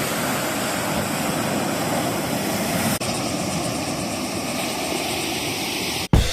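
Steady rushing noise of ocean surf breaking at the beach, with a short break about three seconds in; near the end it cuts off and music with drums starts.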